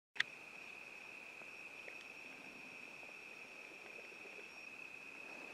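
Cricket trilling: a faint, steady, high-pitched note that holds without a break. A single sharp click comes just as the sound begins, a moment after the start.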